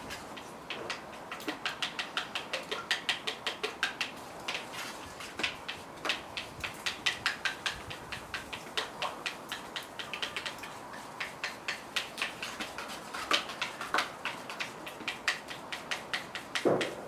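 A rapid run of light metallic clicks and clinks, several a second and uneven in loudness, with one short, fuller and lower sound near the end.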